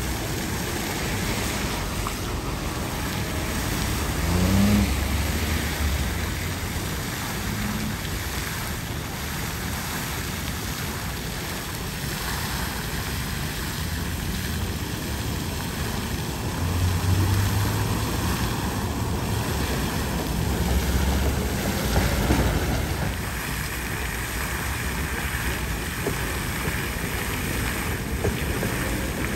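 Water gushing from a burst underground pipe through the road surface: a steady rushing spray. Passing vehicles rumble by several times underneath it.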